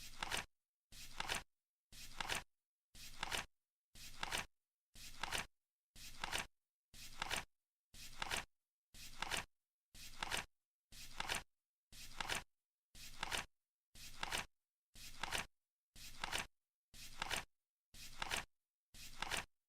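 Flip clock timer flipping once a second as it counts down: each flip is a brief sound that builds to a sharp click, with silence in between.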